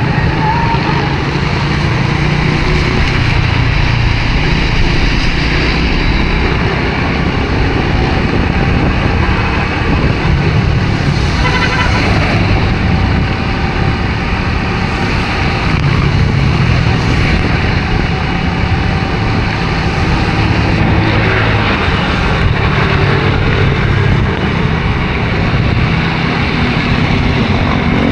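Honda RSX 110 underbone motorcycle's single-cylinder engine running under way, its pitch shifting a little with the throttle, under steady wind and road noise on the microphone.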